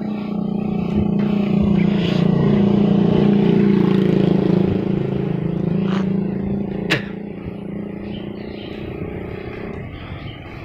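A small engine running steadily at an even pitch, fading away near the end, with one sharp knock a little past the middle.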